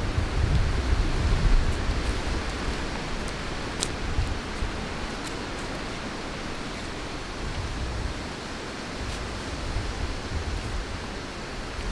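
Steady outdoor wind noise with low rumbling buffeting on the microphone, strongest in the first two seconds and again late on, and a few faint clicks.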